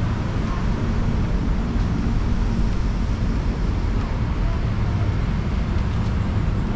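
Steady low rumble of city traffic, an even noise without distinct events.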